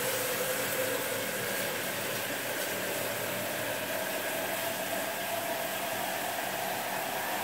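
Water spraying steadily from a hand-held shower head into the bathtub, an even hiss of running water.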